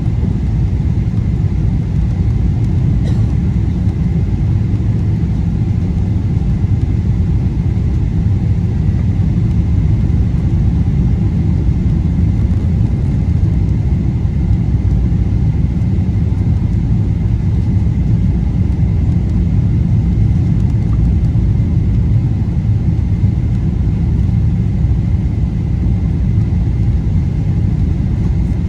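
Airliner cabin noise in flight on approach: a steady, loud low rumble of engines and rushing air, with a faint steady high whine above it.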